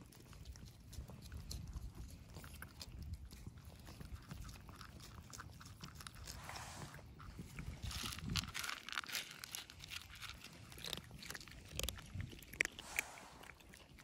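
Cats chewing and crunching their food: a run of short crunches that grows thicker after about eight seconds. A low rumble lies under the first half.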